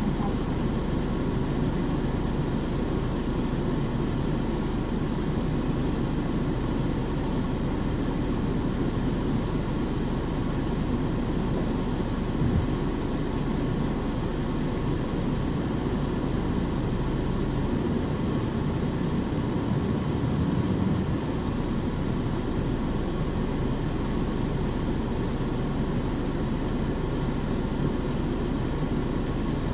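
Steady cabin running noise of a Nissan Diesel KC-UA460HSN city bus with a Fuji Heavy Industries 7E body: its diesel engine and drivetrain hum low and even, with one short knock about twelve seconds in.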